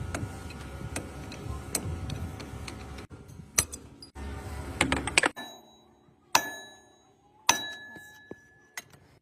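Ticking and clicking over a busy background noise, then two sharp metallic strikes about a second apart that ring on briefly and fade.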